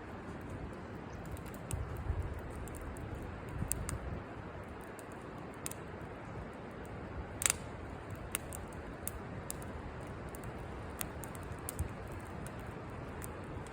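Wood campfire crackling: scattered sharp pops and snaps over a steady low rush, with one louder pop about halfway through.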